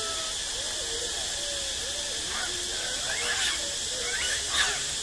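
Macaques calling in the trees: two short rising squeals, about three and a half and four and a half seconds in, with soft low wavering calls throughout, over a steady high hiss.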